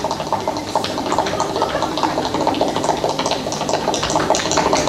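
Tap shoes striking the floor in fast, continuous tap-dance footwork: a dense stream of sharp clicks.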